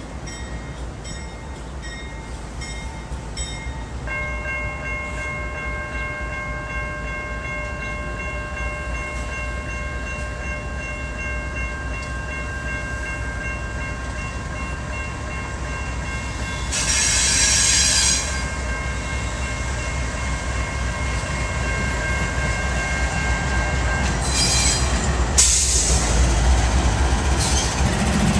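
A GE Dash 9-40CW diesel locomotive's engine running with a steady low rumble as it rolls slowly closer, growing louder. A steady high whine runs through the middle, and a burst of hiss lasts about a second a little past halfway.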